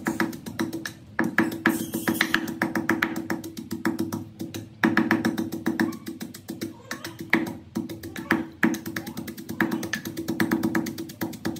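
A pestle pounding in a mortar with repeated dull knocks, over background music.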